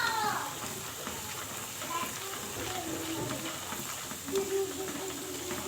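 Food sizzling as it fries in a cooking pot, with faint voices in the background.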